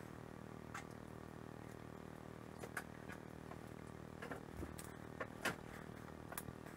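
Scattered light clicks and taps of a small metal stepper-motor mount being handled and fitted by hand, the loudest about five and a half seconds in, over a faint steady hum.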